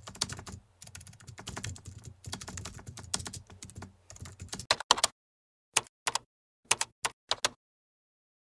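Typing on a computer keyboard: a quick, steady run of key clicks that thins out about five seconds in to a few separate clicks, then stops.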